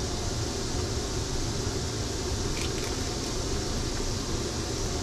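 Steady rushing hum of a fan or air conditioning inside a vehicle, with a faint short click about two and a half seconds in.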